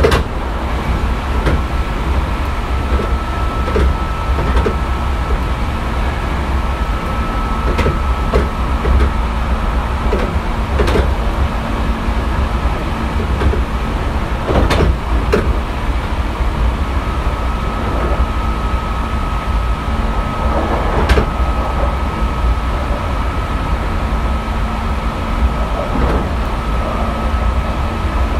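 Hankyu 3300-series commuter train running, heard from inside the car: a steady low rumble with scattered sharp clicks from the wheels over the track. A thin steady high tone stops about ten seconds in and returns about seventeen seconds in.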